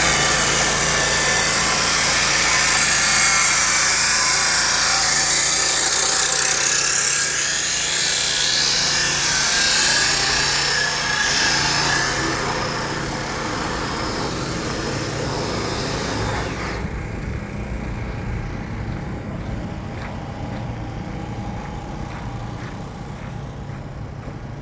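Steady, loud machine noise with a low hum underneath and a strong hiss; the hiss drops away about two-thirds of the way through and the sound grows quieter.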